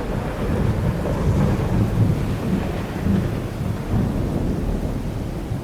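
Thunderstorm noise: a continuous low rumble with rain, rising and falling.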